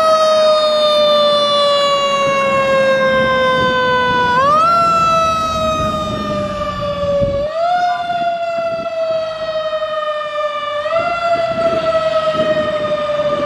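Fire engine siren. Its pitch jumps up quickly, slides slowly down over about three seconds, then jumps again, three times in a row, over the low rumble of the truck's engine pulling away.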